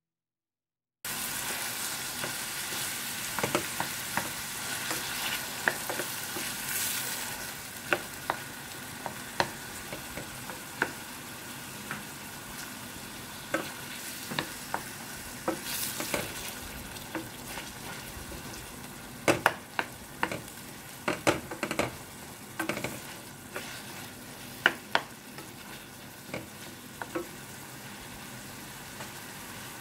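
Chopped tomatoes, onions and garlic sizzling in oil in a stainless steel pan, starting suddenly about a second in. A wooden spoon stirring them knocks and clicks against the pan again and again, most often about two-thirds of the way through.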